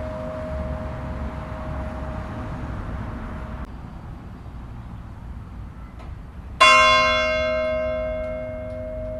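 A church bell of Neskirkja tolling. The ring of the last stroke hangs and then dies out about a third of the way in. About two-thirds of the way in the bell is struck once more, loud and sudden, and rings on with a long slow decay.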